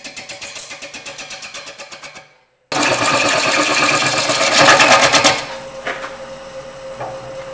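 Gouge cutting an out-of-round natural-edge bowl blank spinning on a Robust wood lathe. At first it is an interrupted cut: a rhythmic knocking of about nine hits a second as the tool meets the blank's high spots each turn, a sign that the blank is not yet trued round. After a short break the cut turns into a louder continuous cutting noise, then the tool comes off a little past halfway and only the lathe's steady hum is left.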